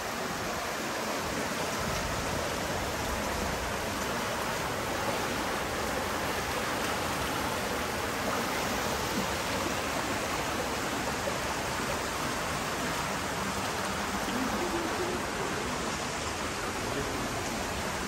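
Shallow, fast-flowing stream babbling and rushing over small drops and a rocky bed, a steady even wash of water.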